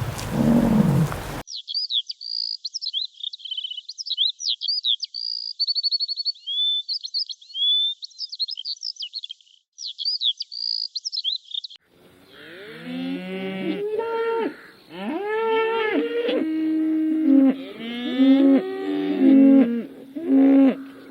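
A loud low sound cuts off about a second and a half in, followed by high chirps and trills. From about twelve seconds, several cattle moo over one another, one rising call after another.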